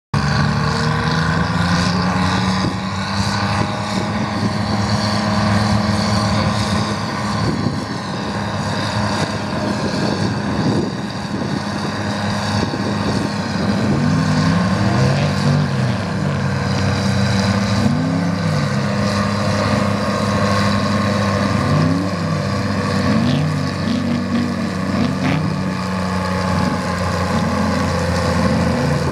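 Chamberlain Super 70 tractor's GM 3-71 two-stroke diesel running hard under load as it drags a weight-transfer pulling sled. The engine note is steady, and from about halfway its pitch wavers up and down.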